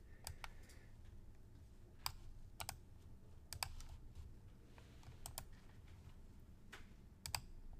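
Faint, scattered clicks of a computer mouse and keyboard, about a dozen, several in quick pairs like double-clicks, over a low steady hum.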